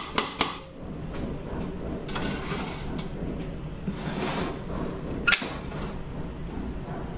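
Metal parts of a Mercedes 722.9 automatic transmission being slid and seated inside its aluminium case: short scrapes and light clicks, with one sharp metal clink about five seconds in.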